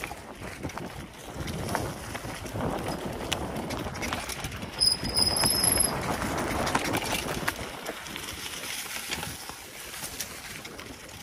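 Mountain bike rolling fast down a dirt forest trail: tyre noise over soil and leaves with clicks and rattles over bumps. About five seconds in, a high-pitched brake squeal holds for about a second, from metal brake pads that squeal readily.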